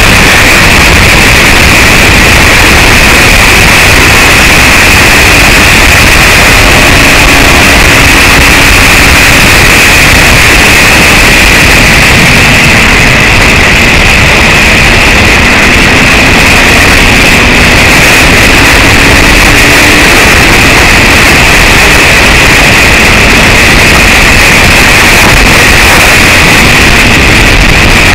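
Steady, loud wind roar on a racing vintage motorcycle's onboard camera at speed, with the bike's engine faintly heard underneath, its note rising and falling a little.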